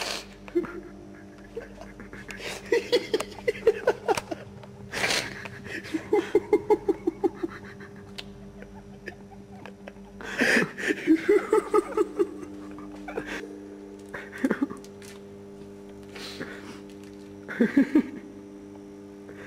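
People giggling and stifling laughter in several short bursts of quick pulsed chuckles, over a steady low hum.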